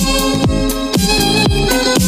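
Background electronic dance music with a steady beat of about two kick-drum hits a second under a held melody.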